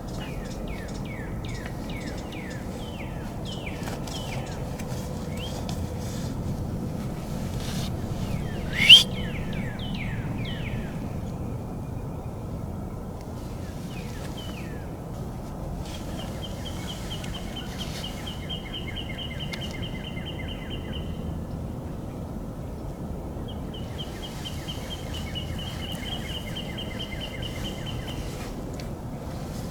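Songbirds singing. For about the first ten seconds there is a run of quick downward-slurred whistles, with one loud rising whistle near the middle. After that a rapid, even trill comes three times in long runs, over a steady low background rumble.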